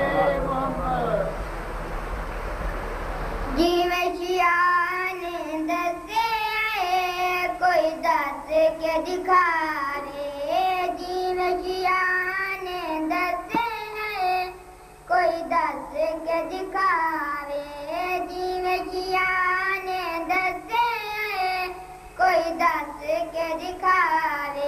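A young boy singing devotional verse in a melodic style with long held notes, starting about three and a half seconds in after a stretch of noise.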